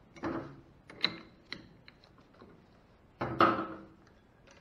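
Metal clunks and clatter of lathe tooling being handled and set on the tool post, with no motor running: a clatter just after the start, a sharp knock with a brief metallic ring about a second in, and the loudest, longer clatter about three seconds in.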